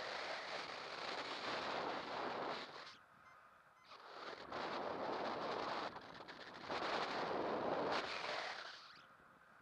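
Wind rushing over the microphone of a paraglider pilot's camera in flight, coming in long rough surges that fade away near the end.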